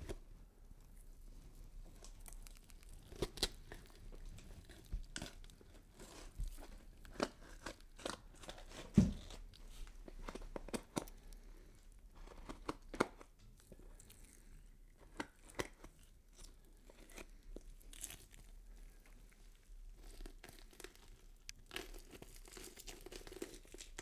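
Horror foley sound effect of skin being cut and peeled: irregular tearing and crackling with scattered sharp snaps. A heavy, deeper hit about nine seconds in is the loudest.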